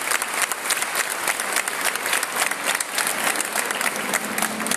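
A crowd applauding, dense irregular clapping that dies away near the end.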